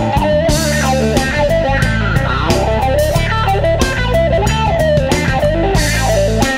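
Live electric blues band playing: an electric guitar takes a lead solo full of bent notes over bass guitar and a drum kit with cymbal hits.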